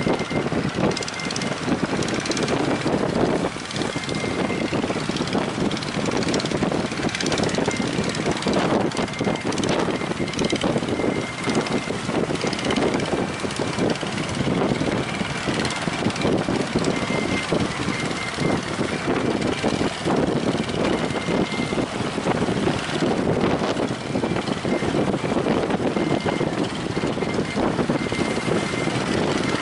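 Strong gusty wind blowing on the microphone, mixed with the steady noise of breaking surf.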